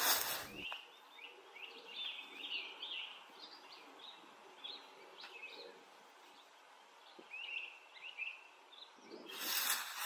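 Small birds chirping and singing in short phrases in woodland, with a brief burst of rustling noise at the start and another near the end.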